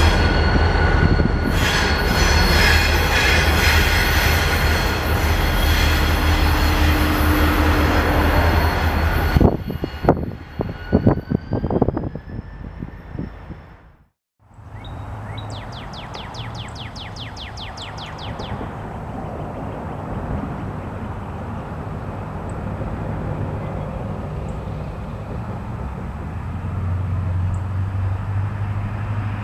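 A CSX diesel locomotive running light at close range: engine rumble and high squealing from the wheels. After about ten seconds come a few knocks before it cuts out. Then a distant train's diesel engine rumbles faintly, growing louder near the end as it approaches.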